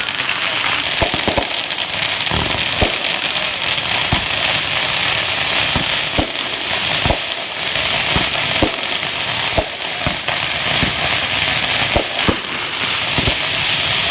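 Fireworks going off: a steady fizzing, crackling hiss with irregular sharp pops scattered through it.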